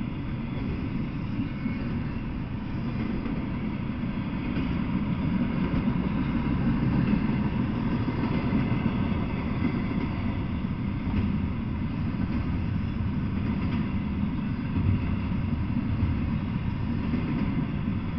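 Double-stack container freight train passing at speed: a steady rumble of wheels on rail, a little louder midway through.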